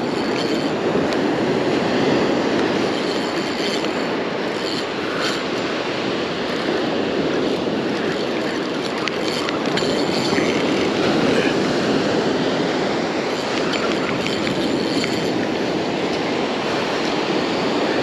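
Steady rushing noise of surf on the beach, an even wash of sound without breaks.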